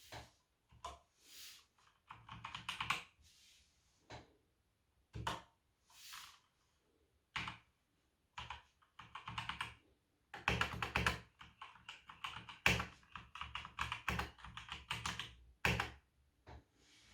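Typing on a Velocifire VM02WS wireless mechanical keyboard: rapid runs of key clicks broken by pauses and single keystrokes, with the longest fast run in the second half.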